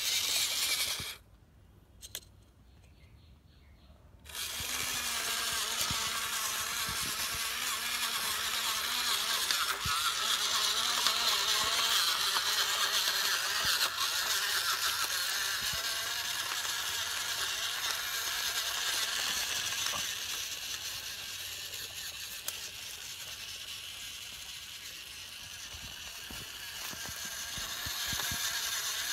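Electric drive motors of a homemade 4WD Arduino RC jeep whirring as it is driven through grass and dirt. There is a short burst at the start, then a pause of a few seconds, then steady running from about four seconds in.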